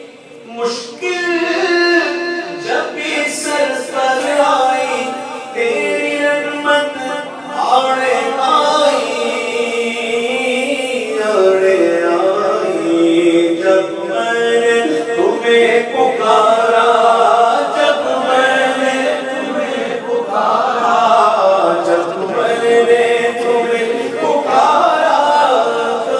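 A man singing an Urdu naat unaccompanied, in long, drawn-out wavering notes.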